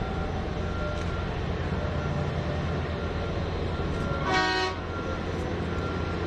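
Steady low drone of a mining haul truck and an electric rope shovel working, with a brief horn toot about four seconds in.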